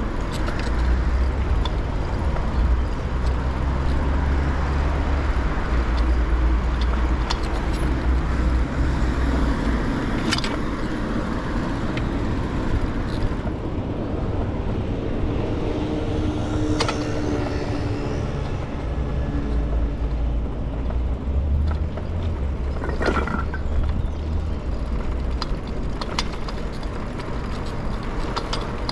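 Street noise heard from a moving bicycle: a steady rumble of wind on the microphone and rolling noise, with scattered small clicks and rattles. A motor vehicle passes with an engine hum about halfway through.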